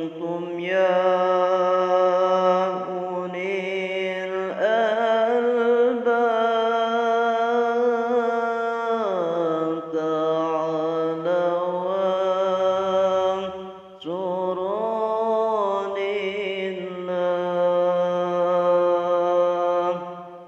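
A man's solo voice chanting an Arabic devotional qasidah in long, drawn-out notes with ornamented turns, pausing briefly for breath twice.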